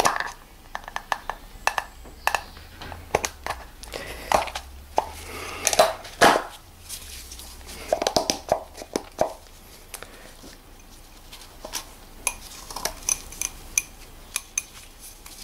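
Handling noises from an oil filter cartridge and its threaded housing cap: a run of irregular light clicks, taps and knocks, with the loudest knock about six seconds in and lighter ticks toward the end.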